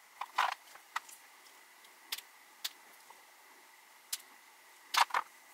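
Flush cutters snipping the wires off a LiPo battery's cell tabs: a series of short, sharp clicks, the loudest about half a second in and near the end.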